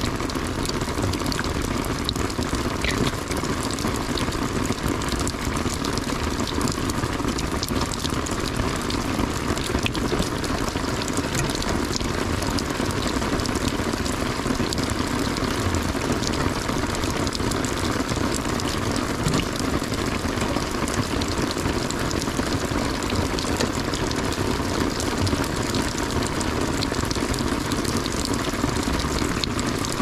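Steady rain: a constant hiss with a dense patter of drops.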